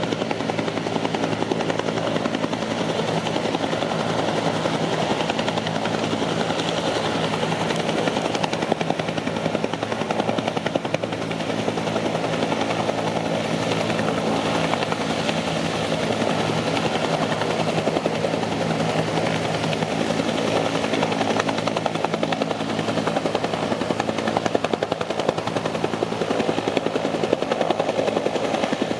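Helicopter hovering low over the lake to draw water, its rotor and engine running loud and steady.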